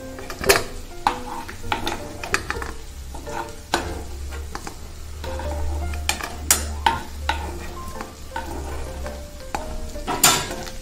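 Steel spoon scraping and clinking in a non-stick kadai as fried potato pieces are scooped out of sizzling oil and tipped onto a steel plate. Sharp knocks come throughout, the loudest about half a second in and near the end.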